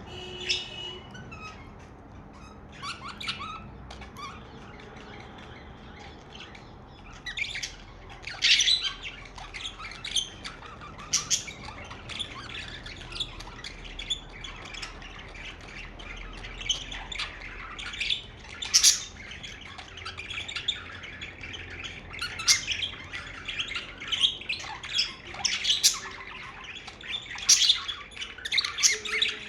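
Pet budgerigars chirping and squawking in short, sharp calls, a few scattered at first, then a busy, near-continuous chatter from about seven seconds in.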